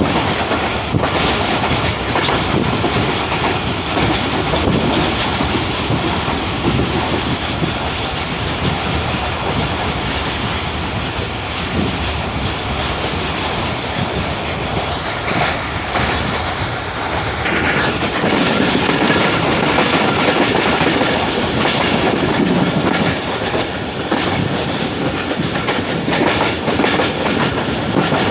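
Pakistan Express passenger train running along the track, with the steady noise of its wheels on the rails.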